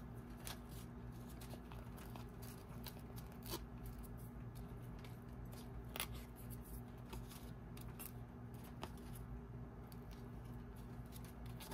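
Faint handling of collage paper on a cardstock card: a scattering of short, sharp crackles and small tears as the overlapping paper is trimmed off the card's edges by hand.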